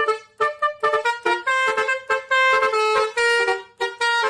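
Indonesian 'telolet' bus horn playing a tune of short notes and longer held ones.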